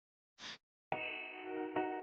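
A brief noisy swish, then a struck metallic ringing tone that starts suddenly about a second in and is struck again near the end: an edited sound-effect or music sting.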